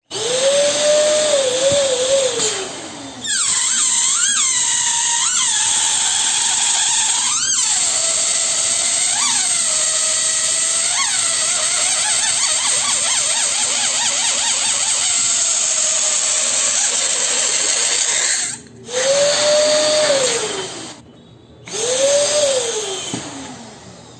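Electric balloon pump inflating balloons: its motor spins up, runs and winds down in short bursts near the start and end, and in one long run of about fifteen seconds in the middle, with a hiss of air and a wavering whistle that squeaks up several times.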